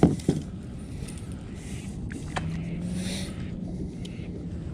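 Two sharp knocks at the start, then light rustling and a click as a salmon is handled in a rubber-mesh landing net inside a plastic kayak. A faint low hum runs under the second half.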